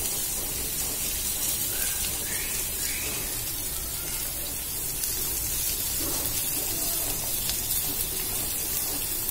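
Chopped onion frying in oil in a kadhai, sizzling steadily; the sizzle cuts off suddenly at the end.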